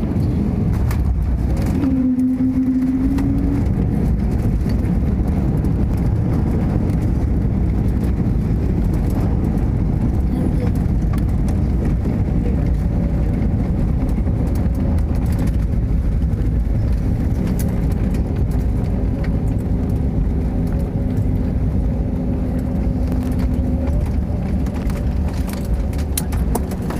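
Airliner cabin noise: a steady, loud low rumble of the engines and airframe, with faint humming tones that come and go.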